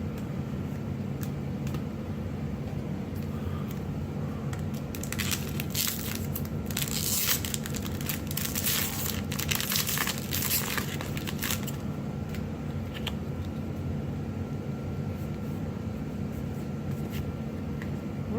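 Magic: The Gathering booster pack wrapper crinkling and tearing as it is opened and handled, busiest from about five to twelve seconds in, over a steady low hum.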